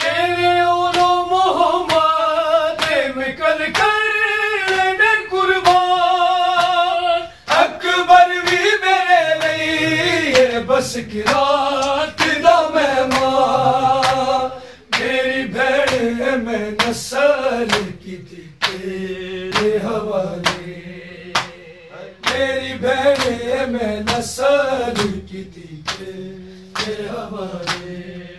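Men singing a noha without instruments: a lead male voice holding long, wavering notes with other voices joining in, over a run of short, sharp beats.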